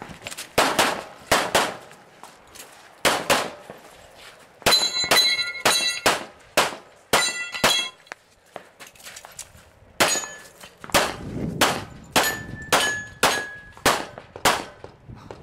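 Rapid pistol fire: about two dozen sharp shots, mostly in quick pairs, with a gap of about two seconds past the middle. Several hits set steel targets ringing with a clear metallic ring, about five seconds in, again near seven and a half seconds, and between twelve and thirteen and a half seconds.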